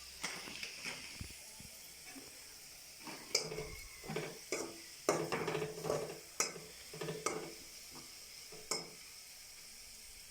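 Onions and chillies sizzling in hot oil in a pan, with a steady hiss. From about three seconds in until near the end, a spatula stirs and scrapes against the pan in a quick run of strokes.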